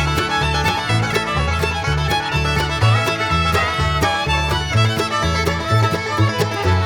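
Background music in a bluegrass style: fiddle and banjo over a bass line that steps from note to note with a steady beat.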